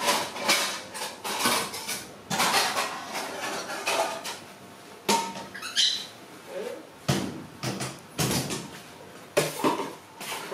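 Scuffling and thumping of a baby macaque and a cat wrestling on a concrete floor, heard as irregular short noisy bursts, with a brief high squeak about six seconds in.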